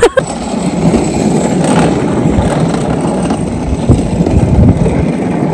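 A steady low rumble heard from a helmet camera on a moving chairlift, with a couple of faint knocks near the start.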